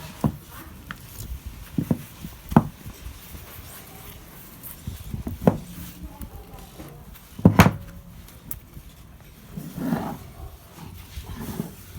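Sharp knocks and clanks from handling the parts of an opened refrigerator compressor, about half a dozen separate strikes, the loudest a quick double knock past the middle. A brief voice-like sound comes near the end.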